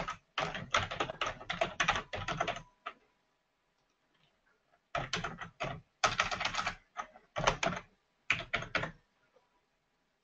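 Typing on a computer keyboard: a quick run of key clicks, a pause of about two seconds, then a second run of clicks that stops shortly before the end.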